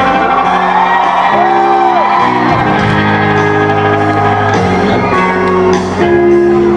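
Live rock band playing an instrumental passage between vocal lines, with electric guitar notes bending up and down over sustained chords and drums. Crowd shouts and whoops can be heard through the music.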